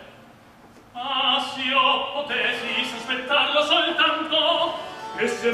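Live operatic singing. There is a short lull at the start, and the voice comes back in about a second in.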